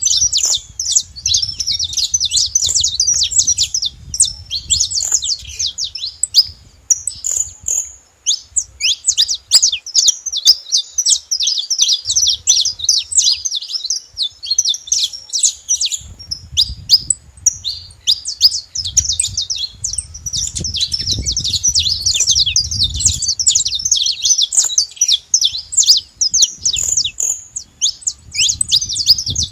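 Saffron finch singing: long, fast runs of high chirping notes with short breaks between phrases. A low rumble sits under parts of the song.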